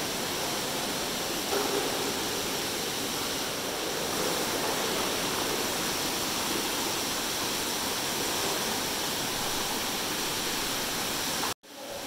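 Steady rush of running water in a large hot-spring bath, an even hiss with no break until the sound cuts out abruptly near the end.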